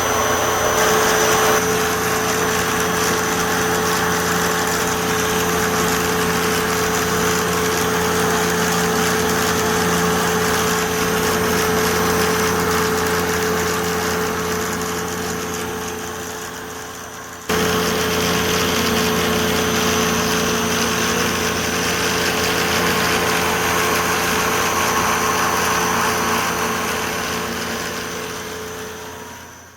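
Steady drone of running power-plant machinery, with several steady hum tones over a hiss. It fades down and cuts off about 17 seconds in, starts again just as steadily, and fades out near the end.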